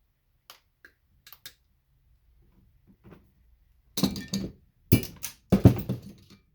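Small scrap brass pieces from Christmas light sockets clinking and rattling together, a few light clicks at first, then three louder rattles from about four seconds in.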